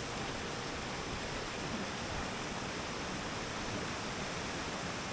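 Waterfall rushing steadily, an even hiss of falling water with no change.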